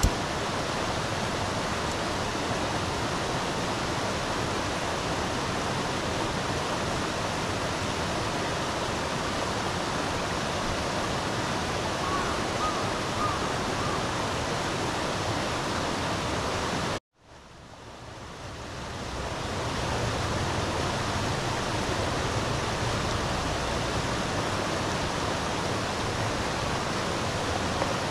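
Steady rushing of flowing river water. It cuts out abruptly about seventeen seconds in, then fades back up over a few seconds.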